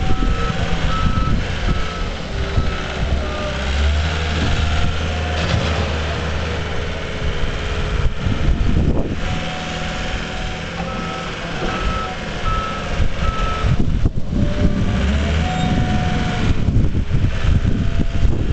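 John Deere compact wheel loader's engine running, with its reversing alarm beeping about twice a second near the start and again about halfway through.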